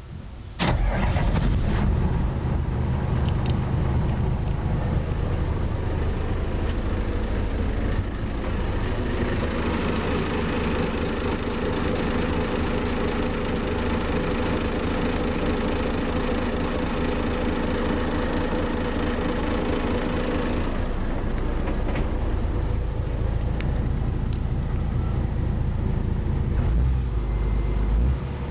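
Isuzu turbocharged marine diesel engine starting about half a second in, then idling steadily. Its humming drone is clearest in the middle stretch, when heard close up in the engine compartment.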